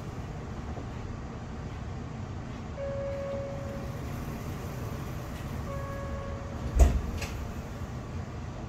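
Tram interior hum while standing at a stop, with two held electronic tones, one about 3 seconds in and one about 6 seconds in. About 7 seconds in there is a single loud knock, followed by a fainter click.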